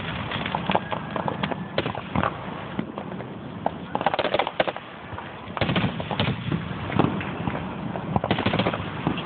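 Aerial fireworks crackling and popping: rapid clusters of sharp pops, densest about four seconds in, again around six seconds and near the end.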